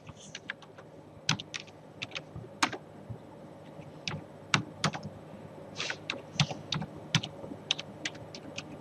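Typing on a computer keyboard: a run of irregular key clicks, a few a second.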